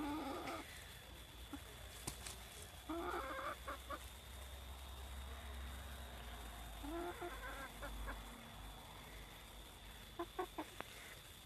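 A broody hen clucking in four short bursts, the low warning clucks of a hen guarding the egg beneath her.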